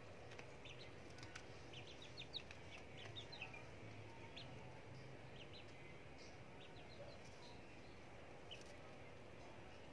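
Faint short chirps from young chickens: a quick run of them about two seconds in, then scattered single chirps, over a low steady hum.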